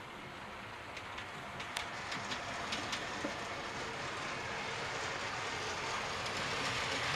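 Model railway train, a DC-controlled model steam locomotive hauling coaches, running along the layout's track. Its running sound grows steadily louder, with a few light clicks about one to three seconds in.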